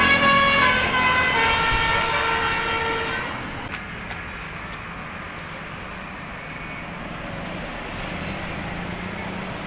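Basuri 'telolet' bus horn playing a quick melody of stepped notes, cutting off about three seconds in, followed by steady road and engine noise.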